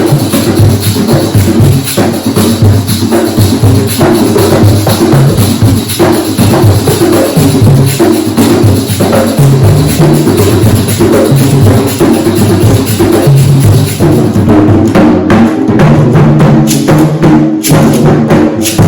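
Hand drums played together in a dense, continuous rhythm, with sharper, brighter strikes near the end.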